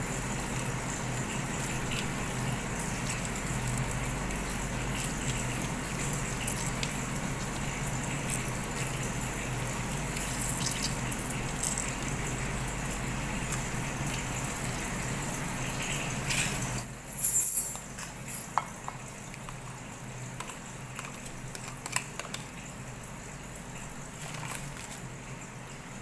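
Wet squishing and dripping as crumbled tofu is squeezed by hand to press out its water, over a steady hiss. The hiss drops away about 17 seconds in with a short loud rustle, followed by a few light clicks and taps.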